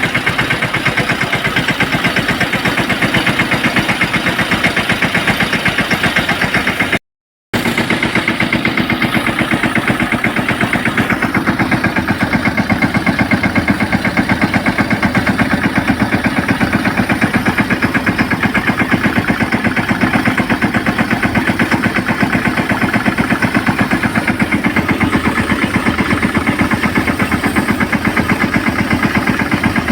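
Engine running steadily with a fast, even pulse, powering a pesticide spray pump. The sound drops out completely for about half a second, about seven seconds in.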